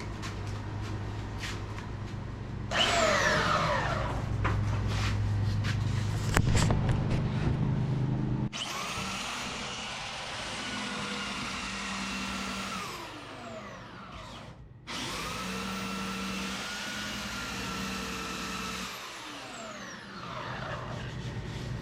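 An electric power tool running with a steady high whine in two runs, the first starting about eight seconds in, each winding down at its end. Before it there is a low shop hum with a few knocks.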